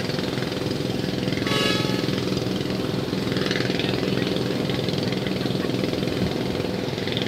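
Docked ship's diesel engine idling, a steady low drone with a throbbing beat. A brief higher-pitched sound made of several tones cuts in about a second and a half in.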